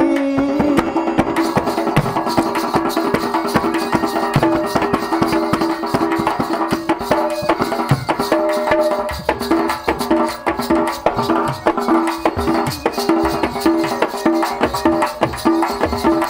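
Instrumental break in Sambalpuri danda folk music: fast, busy drum strokes under a short melodic phrase repeated again and again.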